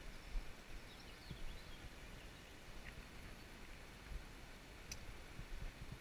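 Faint, steady rush of a shallow stream running over stones, with low rumbles on the microphone and one sharp click about five seconds in.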